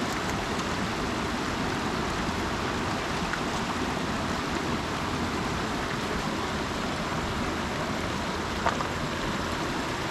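Steady rushing of river water flowing over rocks, with one brief faint tap near the end.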